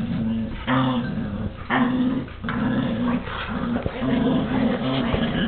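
Dogs growling as they fight over a chew toy: a string of short growls, one after another.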